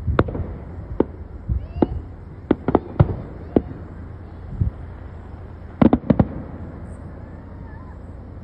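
Fireworks going off: a string of sharp bangs at irregular intervals, with a quick run of four bangs about six seconds in.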